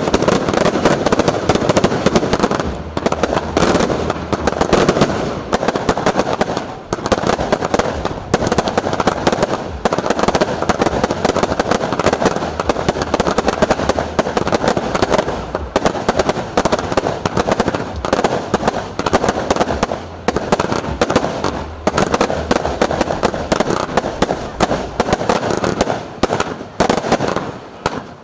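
Fireworks finale: a dense, continuous barrage of bangs and crackles, thinning out just before the end.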